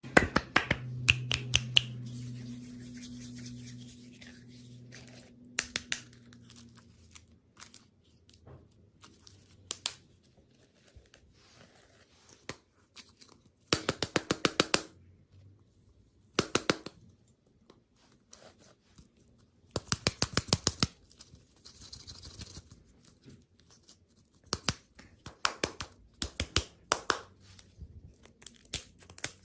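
Candy packaging being handled and opened: crisp crinkling, tearing and sharp clicks, coming in bursts separated by near-quiet gaps, some bursts fast runs of about ten clicks a second. A low hum sounds under the first few seconds.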